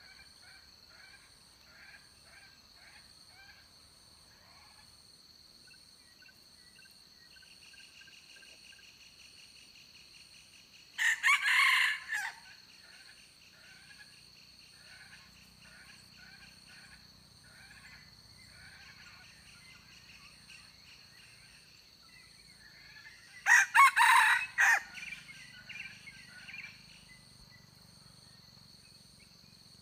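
A junglefowl rooster crowing loudly twice, once about a third of the way in and again about four-fifths in, over a steady high insect drone and soft clucks.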